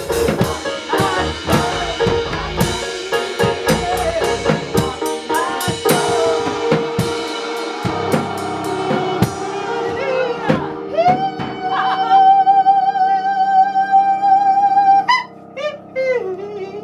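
Live gospel choir singing with drums and keyboard. The drums drop out about halfway, and the song closes on a long held note with vibrato that breaks off near the end.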